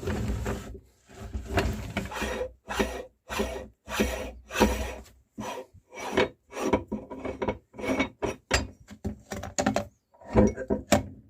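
Meat grinder crushing cookies. A steady grinding noise breaks off within the first second into a string of short rasping crunches separated by brief silences, with a last burst near the end.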